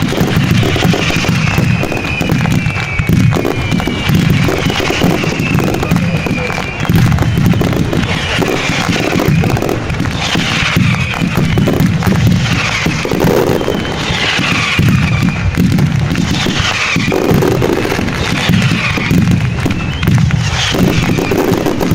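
Fireworks display: a continuous rumble of bursting shells, with music playing over it and short falling tones recurring every second or two.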